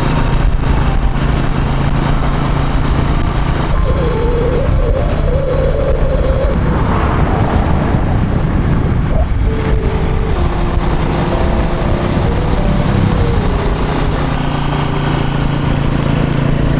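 A moving vehicle's steady engine and road rumble while driving uphill.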